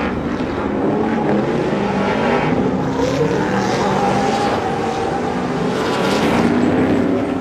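Several off-road race trucks' engines running hard through a corner, their pitches rising and falling as they overlap.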